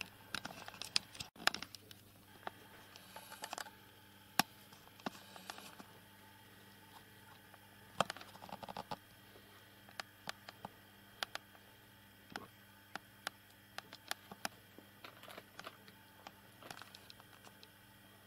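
Scattered light clicks and short rustles, as of small movements over plastic bags and paper, over a faint steady electrical hum. There is a brief dropout to silence about a second in.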